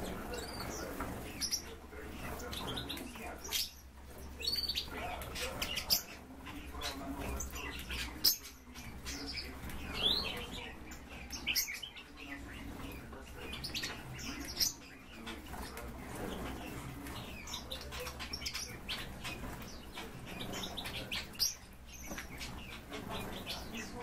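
Hoopoe flapping and fluffing its wings in a dust bath, with several sharp flurries, amid many short high bird chirps throughout.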